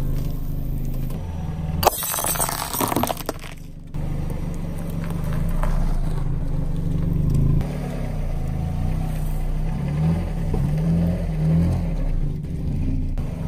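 A car engine running at low speed, its pitch shifting as the car creeps forward. About two seconds in there is a short burst of crunching and crackling as something is crushed under the tyre.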